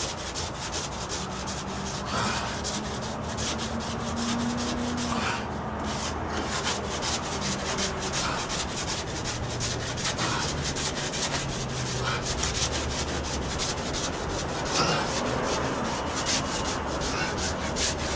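Dried joint compound on a drywall ceiling patch being hand-sanded with sandpaper: steady scratchy rubbing in quick back-and-forth strokes.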